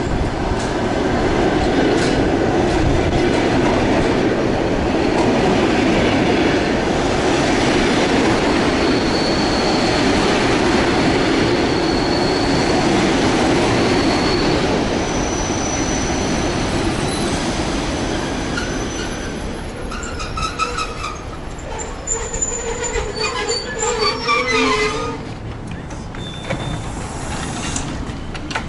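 Standart+ electric commuter train pulling in alongside the platform: running and wheel noise with high-pitched brake squeal, dying down after about two-thirds of the way as the train comes to a stop. Short electronic beeps then sound several times as the doors open.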